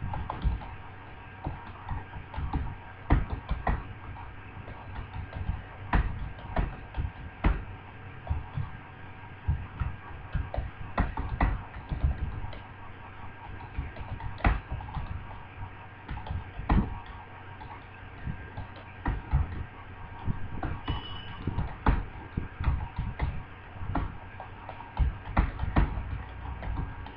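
Computer keyboard keys clicking in quick, uneven succession as someone types continuously, over a faint steady hum.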